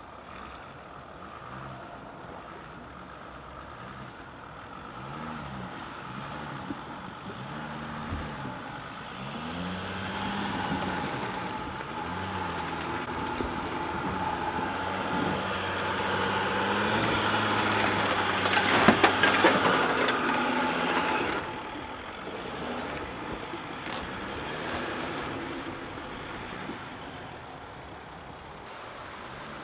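Mercedes Sprinter 4x4 van's diesel engine working off-road, its note rising and falling with the throttle as the van climbs out of a ditch. A burst of crackling and snapping, the loudest part, comes a little past the middle as it pushes through dry brush, then the sound falls away.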